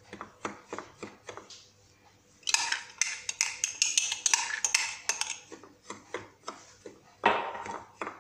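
A glass cup scooping dry semolina and pouring it onto a plate: light taps and clinks of glass, then a dry rustling hiss of grains pouring about two and a half seconds in, and a shorter pour near the end.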